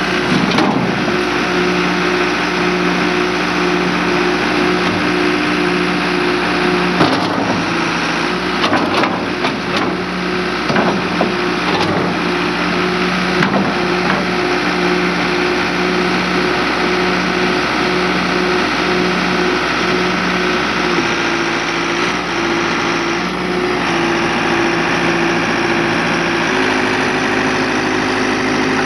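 Diesel engine of a 1996 John Deere 310D backhoe loader running steadily. Its pitch shifts a few times as the engine speed changes, with a few short knocks and clanks between about eight and thirteen seconds in.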